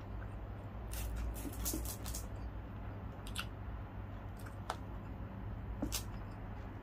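A person chewing crispy deep-fried meat with the mouth closed, giving scattered crunches and clicks: a cluster about a second in, then a few single ones. A steady low hum runs underneath.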